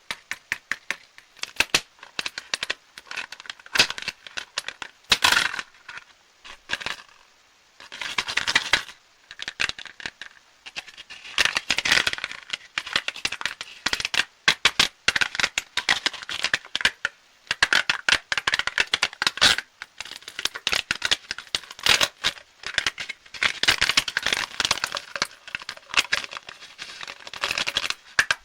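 Candy wrappers crinkling and crackling as sweets are unwrapped: a dense run of sharp crackles with a few short pauses.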